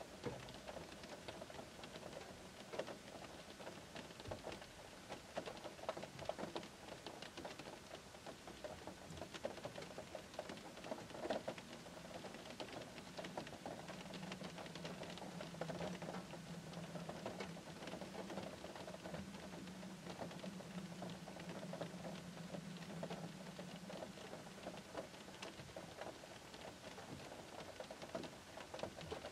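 Gentle rain pattering on the roof and glass of a parked Škoda car, heard from inside the cabin: a dense, steady run of small drop ticks.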